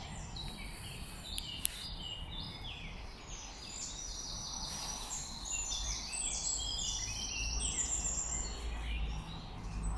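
Several songbirds singing at once, overlapping short trilled and chirping phrases, over a steady low rumble. A single sharp click a little under two seconds in.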